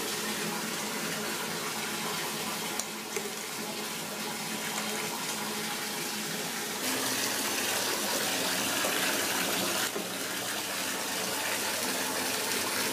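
Bath tap running steadily into a filling bathtub, a constant rush of water that grows a little brighter about seven seconds in.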